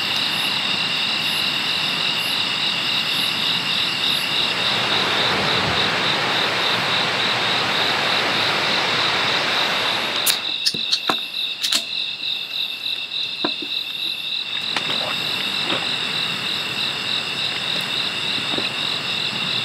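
Night chorus of calling insects: an evenly pulsing high chirp that runs steadily. For the first half a steady rushing noise lies under it and stops abruptly about halfway. After that the chirping stands out alone, with a few sharp ticks.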